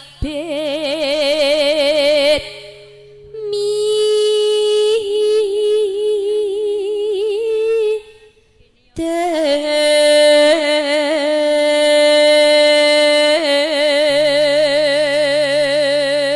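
A woman singing a slow Javanese song into a microphone, holding long notes with a wide vibrato, in phrases broken by short pauses about two and a half and eight seconds in. A low steady note sounds beneath her at the start and again near the end.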